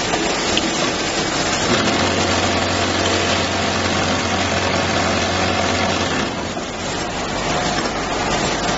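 Popcorn bottle-filling and packaging line running: a steady din of conveyor and filler machinery, with a low hum that comes in about two seconds in and drops out about four seconds later.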